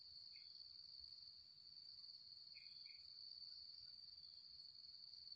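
Insects droning steadily, a faint unbroken high-pitched buzz, with a few faint short chirps over it.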